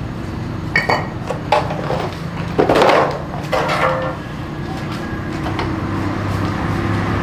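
A handful of short clinks and knocks of kitchenware being handled, a couple of them ringing briefly, over a steady low hum.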